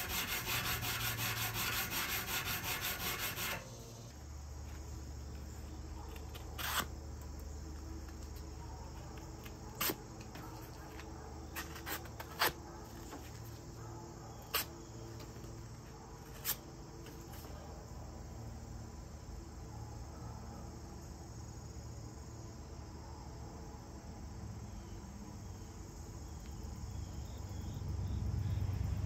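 For the first few seconds, quick strokes of a hand file on the steel of a railroad spike clamped in a vise. Then comes a steady chorus of crickets, with about half a dozen short, sharp ticks of a knife blade slicing paper.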